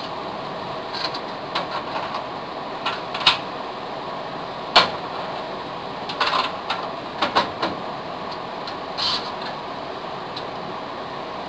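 Scattered sharp metal clicks and clinks as a filing cabinet's lock cylinder is pulled out of the drawer front and a new lock is fitted in its place, over a steady background noise. The two loudest clicks come about a third and halfway through, with a quick run of clinks a little past the middle.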